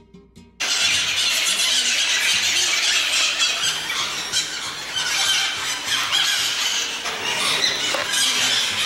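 A colony of oilbirds (guácharos) screeching in a loud, dense chorus inside the cave, cutting in suddenly about half a second in.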